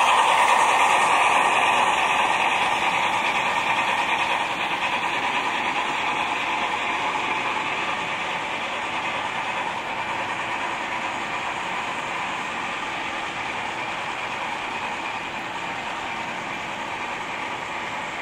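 HO-scale model of a South African Railways GMAM Garratt fitted with a Loksound 5 sound decoder running with its train, the steam-locomotive sound from its onboard speakers fading steadily as the train rolls past and away.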